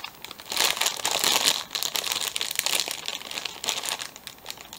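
Plastic snack bag of baked frosted rice snacks crinkling as it is handled and held up. It is loudest in the first couple of seconds, then softer.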